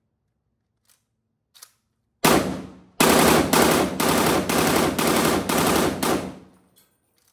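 POF CW39 rifle firing: one shot, then a second later a quick string of shots, about three a second, for roughly three and a half seconds, each ringing out.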